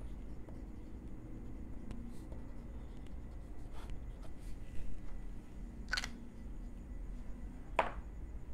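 Fountain pen nib scratching faintly on paper as a short phrase is written and underlined, over a low steady hum, with two sharp clicks about two seconds apart near the end.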